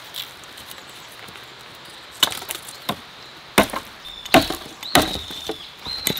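Hatchet chopping thin wooden poles to length against a log: a series of sharp, irregularly spaced wooden chops.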